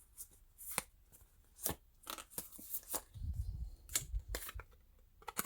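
Pokémon card booster pack being torn open and handled: a string of short crinkles and snaps from the foil wrapper.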